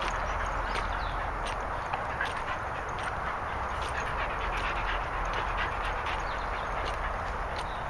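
A group of dogs moving about and playing close by, with scattered light rustles and clicks from their feet on grass and dead leaves over a steady background hiss.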